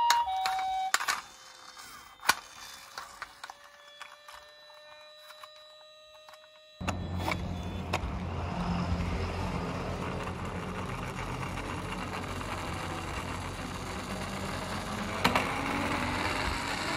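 A toy ambulance minicar's electronic two-tone siren, alternating between two pitches, stops about a second in; a few quieter seconds of small clicks follow. About seven seconds in, a steady rattling rumble with a low hum starts suddenly and runs on, with a faint rising tone near the end.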